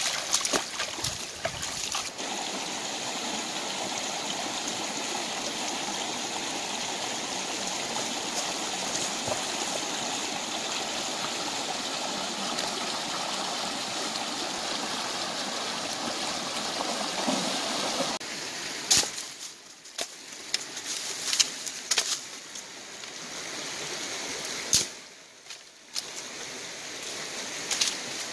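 Shallow rocky stream running steadily, with splashing and sharp knocks in the first couple of seconds. About two-thirds of the way in the water sound drops away and scattered sharp knocks and rustles take over.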